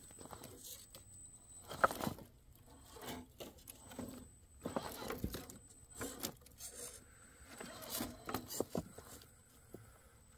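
Irregular small knocks, clicks and scrapes as a radio-controlled rock crawler's rubber tires and plastic chassis grind and bump over wet rocks and dry leaves, with the sharpest knock about two seconds in.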